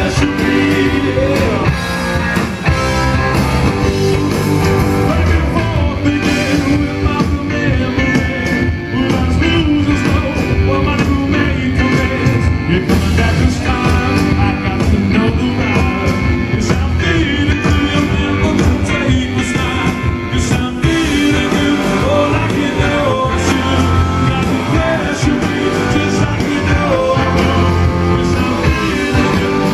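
Live rock band playing a song with electric guitars, bass and keyboard, and a lead voice singing over it, loud through the stage PA.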